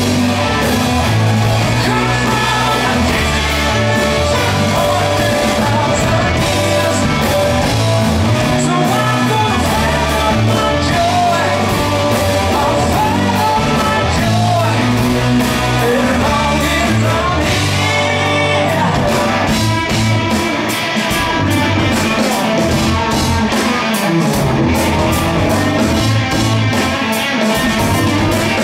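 Rock band playing live and loud: electric guitar, bass and drum kit, with a male lead singer, heard from the crowd.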